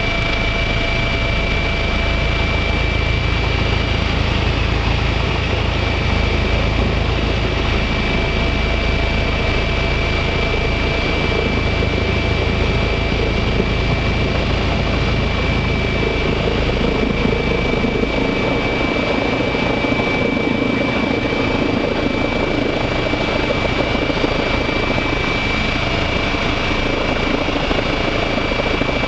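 Eurocopter EC135 twin-turbine helicopter heard from inside the cabin in flight on approach to a landing: a steady high turbine whine over the rotor and engine noise. About two-thirds of the way through, the deep rumble fades and the noise shifts toward the middle range.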